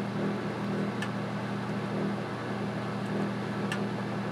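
A steady low hum, with a faint tick about a second in and another near the end.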